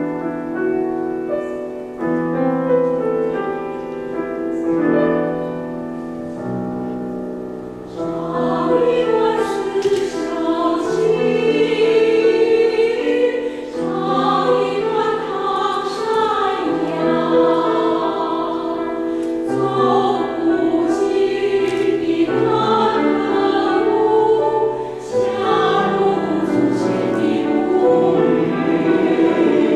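Mixed choir singing in harmony with piano accompaniment. The choir starts soft and grows louder about eight seconds in, then keeps singing full voiced.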